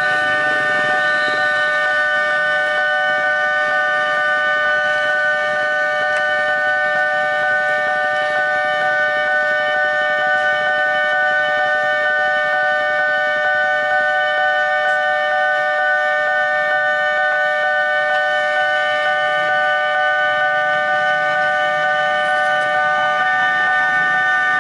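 Railway level-crossing warning alarm sounding continuously as a steady, unbroken set of high tones, signalling that a train is approaching and the crossing is closed.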